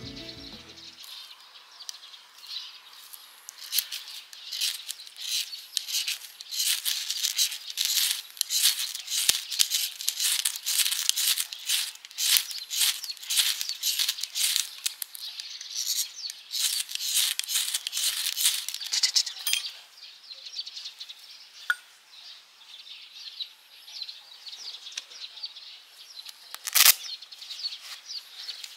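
Ferro rod scraped again and again with a striker to throw sparks onto wood shavings: a long run of quick, sharp scrapes, which thins out to light rustling. There is a single sharp knock near the end.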